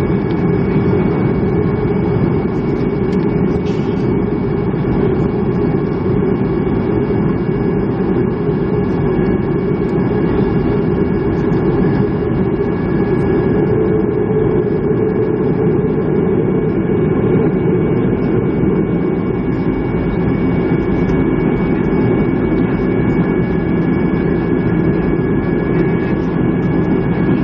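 Boeing 737-300 cabin during taxi after landing: the CFM56-3 jet engines idling with a steady low rumble and two steady high whining tones, heard from inside the cabin.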